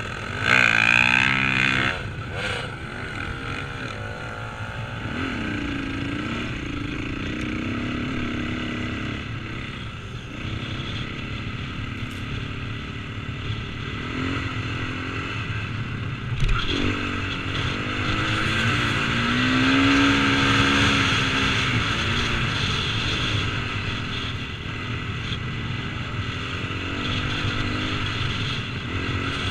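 KTM 450cc four-stroke single-cylinder dirt bike engine, heard close up from the rider's helmet, revving hard about a second in as it pulls away, then running on with the throttle rising and falling as it rides over sand.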